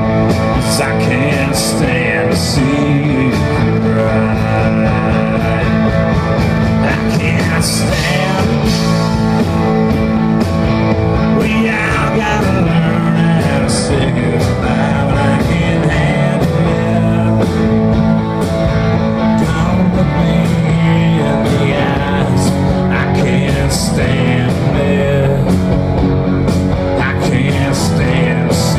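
A live rock band playing loudly through a club PA, with electric guitars to the fore over steady drum hits.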